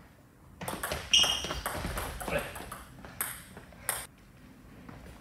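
Table tennis rally: the ball clicks off rubber-faced paddles and pings on the table, in a quick run of hits starting just under a second in. Single sharp clicks follow near three and four seconds.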